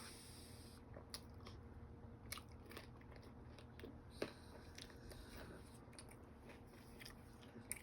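Faint chewing with scattered small clicks and crunches as a person eats an ice-cream Blizzard with chocolate chips.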